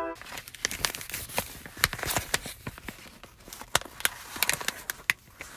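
A quick, irregular run of sharp clicks and taps, several a second, some louder than others.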